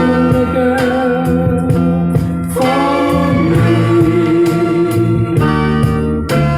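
Recorded soul song: a held, wavering vocal line over guitar and a steady bass.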